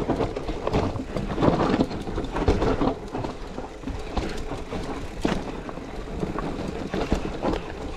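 Enduro mountain bike riding down a rough, rocky trail: tyres rolling over dirt and stones, with constant rattling and irregular knocks from the bike.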